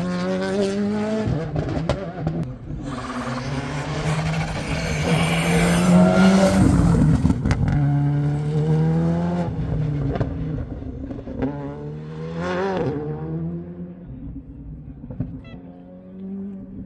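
Rally car engine revving hard, its pitch climbing and dropping again and again through gear changes. It is loudest about six seconds in and fades toward the end.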